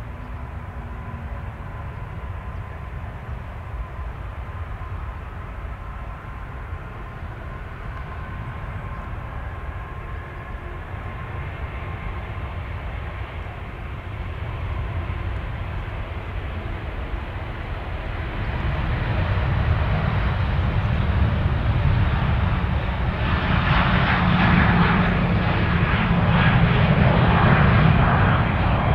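Airbus A380 jet engines: a whine that rises slowly in pitch over a steady low rumble, growing louder and giving way to a loud low roar with crackling in the last several seconds.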